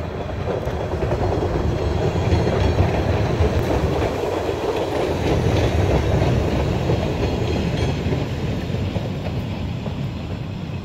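Restored 1963 Boston Red Line 01400-series electric subway cars passing by on the rails: a loud rumble of wheels and running gear that swells as the cars come alongside and fades as they move off.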